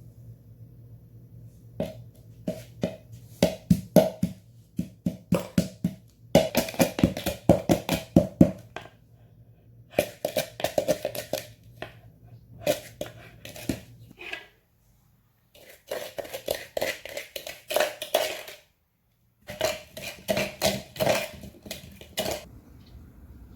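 Close-up chewing of crisp bilimbi fruit: rapid crunching bites, several a second, in bursts of a few seconds with short pauses between.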